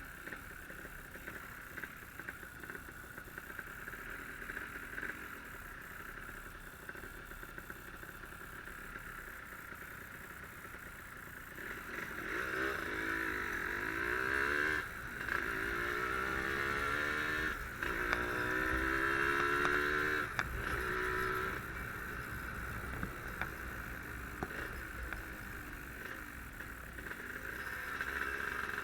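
Yamaha RD135 two-stroke single-cylinder motorcycle engine under way, with a steady rushing noise. About twelve seconds in it revs up through the gears, the pitch climbing and dropping back at each of three shifts, then it settles to a steady cruise.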